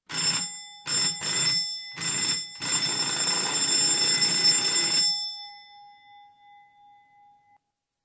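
Electric doorbell with a ringing bell, pressed impatiently: four short rings, then one long ring of about two and a half seconds. The bell tone hangs on faintly for a couple of seconds after it stops.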